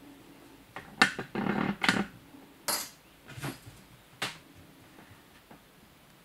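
A British Shorthair kitten's paws knocking and scrabbling on a wooden tabletop as it plays, a few sharp clattering knocks and short scuffles, the loudest about a second in, then quieter.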